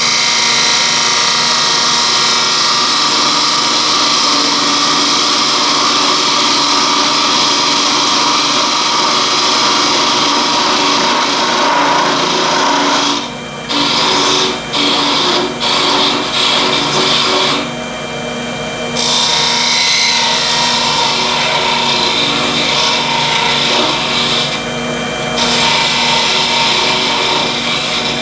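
Wood lathe running while a turning tool cuts the back face of a small spinning wooden blank, a steady hissing scrape over the lathe's hum. In the second half the cutting stops briefly several times as the tool is lifted off the wood, while the lathe keeps turning.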